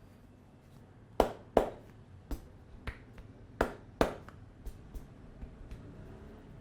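Sharp snaps from a barber's hands during an Indian head massage: about ten, at an uneven pace, the loudest five or six between one and four seconds in, then fainter ones.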